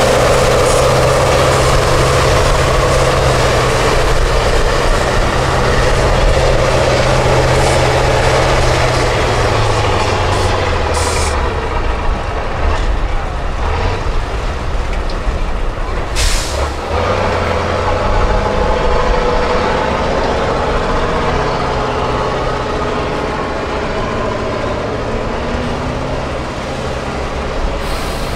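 Tatra six-wheel-drive trial truck's engine running hard in deep mud while its engine compartment is on fire and pouring smoke. Its steady low note changes about a third of the way in. Two short, loud hisses come near the middle, about five seconds apart.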